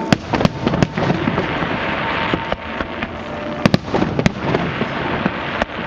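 Fireworks display: a dense continuous crackle with several sharp bangs, three in the first second, a cluster just past the middle and another near the end.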